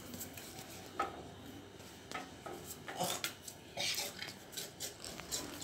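Faint scattered light clicks and taps, with short rustles a little after three seconds and again near four seconds in.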